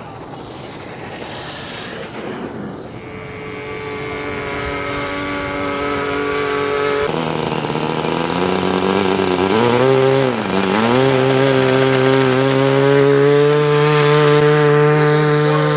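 Radio-controlled model warplane's motor and propeller running overhead, a steady pitched drone that grows louder. Its pitch shifts about seven seconds in, then dips briefly and comes back up about ten seconds in.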